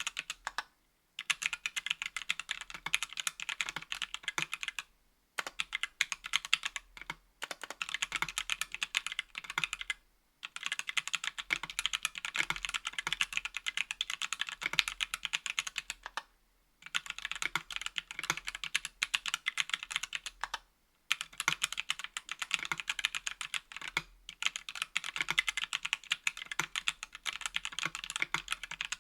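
Fast typing on a mechanical keyboard with Everglide Oreo tactile switches in an aluminum Tofu 60% case and plate: a dense run of sharp key clacks, broken by several short pauses.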